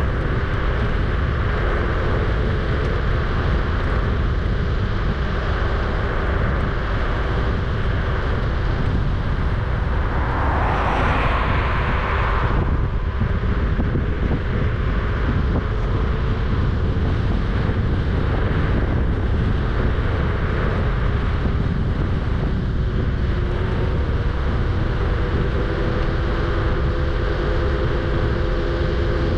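Kugoo G-Booster electric scooter riding at speed, played back at double speed: a steady rush of wind and road noise with the hub motors' whine as a few steady tones. A brief louder rush of noise comes about ten seconds in.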